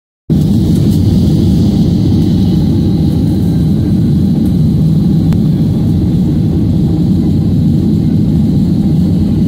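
Boeing 737-800's CFM56 jet engines running, heard from a cabin seat over the wing: a loud, steady rumble, with a faint high whine over it in the first couple of seconds.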